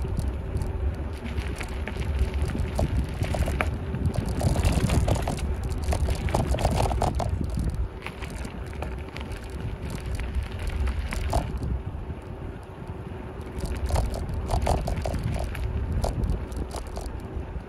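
Wind buffeting the microphone of a bicycle-mounted camera during a ride, with the bike rattling and clicking over the lane surface. The wind rumble eases about halfway through.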